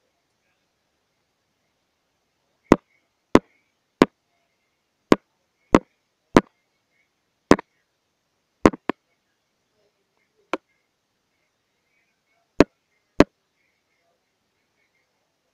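About a dozen sharp, single knocks at irregular intervals, some in quick pairs, with silence between them.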